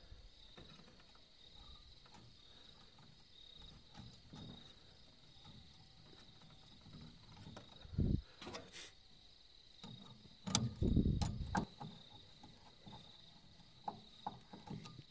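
Faint, steady chirping of a cricket, with a few knocks and rustles as wires and a tester are handled at a motor starter panel. The loudest is a short rustling knock about two-thirds of the way through.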